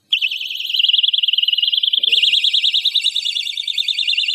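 Electronic siren of a homemade motion-sensor animal deterrent, set off by the sensor detecting someone walking past. It starts suddenly with a loud, high-pitched rapid warble that shifts to a slightly different warble pattern about two seconds in.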